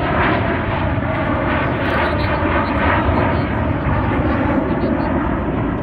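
Jet engines of the Blue Angels' four-jet formation passing overhead, a steady, loud rushing drone.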